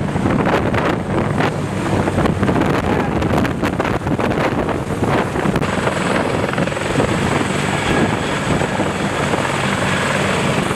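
CH-53K King Stallion heavy-lift helicopter hovering low overhead: a loud, steady rotor roar, choppy and pulsing for the first few seconds, then evening out.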